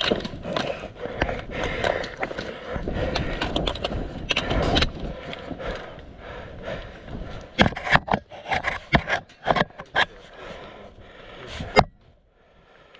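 Rustling and scraping as a player's gear and rifle are handled against a wooden pallet barricade, followed by a scatter of sharp clicks and knocks, the loudest near the end.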